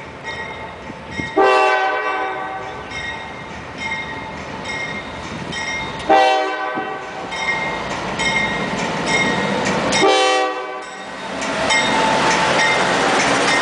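Norfolk Southern diesel locomotive's air horn sounding three blasts about four seconds apart as the coal train approaches. Then the locomotives pass close by with a loud steady rumble of engines and wheels.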